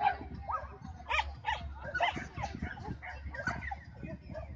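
Dog barking repeatedly in short, high-pitched yaps, about two a second.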